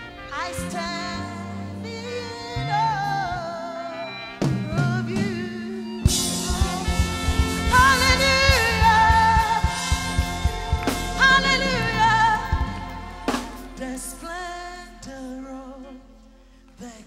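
Live gospel worship music: a woman singing lead over a band, with choir voices. The drums come in about six seconds in for the loudest stretch, then drop out, leaving softer singing over held keyboard notes near the end.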